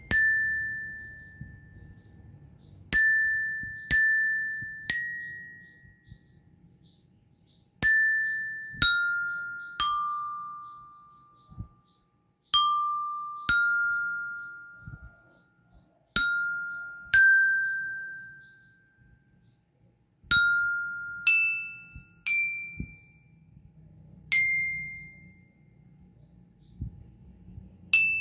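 Aluminium bell lyre, single bars struck one at a time with a mallet, playing a slow melody note by note with pauses between phrases. Each note rings bright and fades over a second or two. The notes step lower in the middle and climb higher toward the end.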